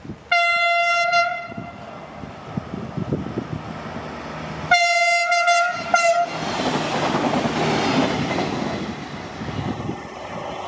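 Horn of a CFR Class 96 Siemens Desiro diesel multiple unit sounding two steady single-note blasts, a short one at the start and a longer one about five seconds in with a brief break near its end, followed by the rising running noise of the train as it approaches.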